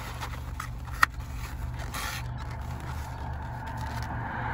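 Foam takeout containers being shifted and pulled out of a cardboard box, scraping and rustling, with one sharp click about a second in.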